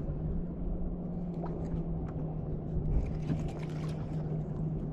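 Boat motor humming steadily, with water sloshing against the hull and a few faint clicks of handling.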